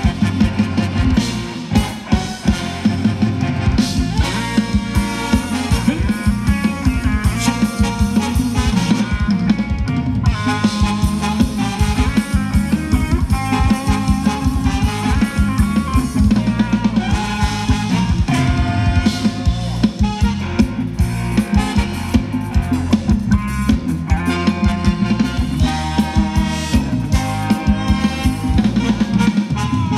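Thai ramwong dance music from an amplified band: a steady drum-kit beat with heavy bass and a melody line over it.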